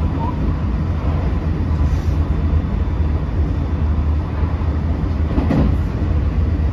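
Running noise heard inside a JR West 225 series 100-subseries motor car, fitted with a Toshiba IGBT VVVF inverter, travelling at speed: a steady low rumble of wheels and traction motors with faint steady high tones over it, and a short, louder burst of noise about five and a half seconds in.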